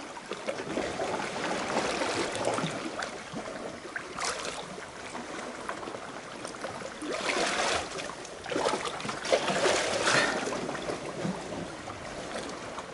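Seawater lapping and sloshing against rocks right at the waterline, an uneven wash with several louder splashing surges.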